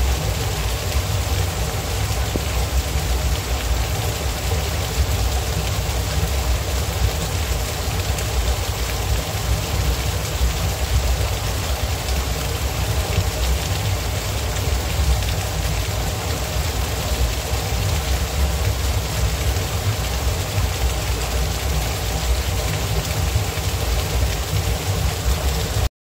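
Small waterfall splashing down a rock face into a shallow rocky stream: a steady rush of falling water with a deep rumble underneath.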